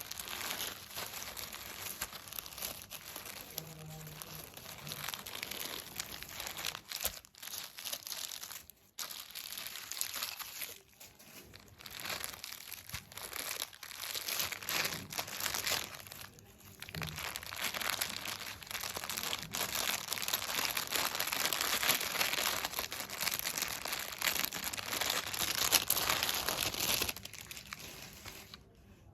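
Plastic packaging crinkling and rustling as a pack of hair clips is unboxed, in dense crackly stretches with a few short pauses, dying away near the end.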